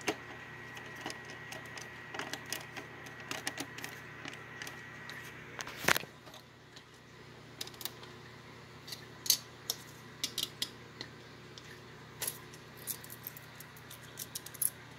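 Plastic LEGO bricks clicking and clattering as a roof section is fitted and pressed onto a LEGO truck model: scattered sharp clicks, with one louder snap about six seconds in.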